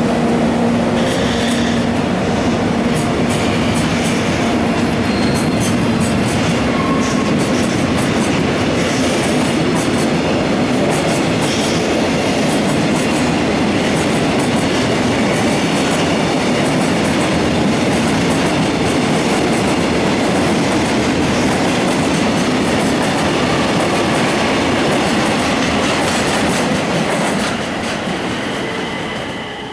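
Train of tank wagons rolling past as it pulls out, its steel wheels running over the rails in a steady loud rumble that fades near the end as the last wagon goes by.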